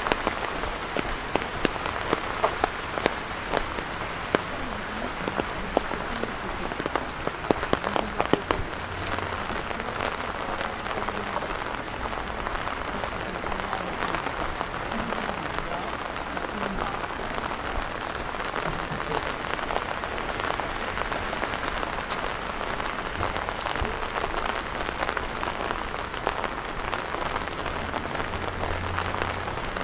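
Steady rain falling. Many sharp drop impacts stand out over the first nine seconds or so, then the rain settles into an even hiss.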